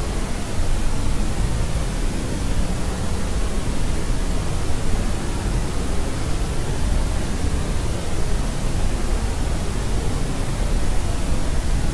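Steady white-noise-machine style noise: an even, unbroken hiss weighted toward the low end, with no changes.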